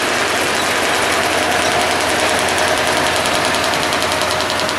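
Diesel shunting locomotive (the Locotracteur X) with its engine running as it moves off along the track, a steady loud mechanical noise with a fast, even clatter coming through near the end.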